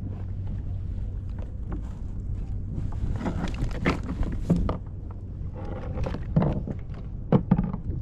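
Wind rumbling steadily on the microphone aboard a fishing kayak, with a run of knocks, rustles and splashy noises from about three seconds in, more around six seconds, and two sharp knocks near the end, as a freshly caught fish is handled.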